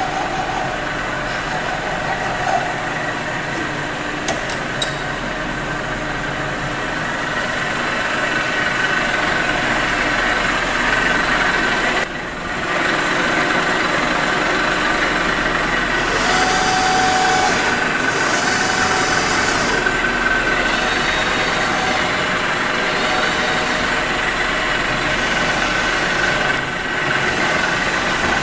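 Deckel FP 5NC CNC milling and drilling machine powered up and running, a steady mechanical hum with faint whining tones. The hum dips briefly about halfway through.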